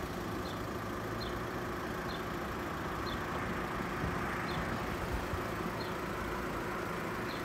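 Steady outdoor background rumble with a low even hum, and faint short high chirps about once a second.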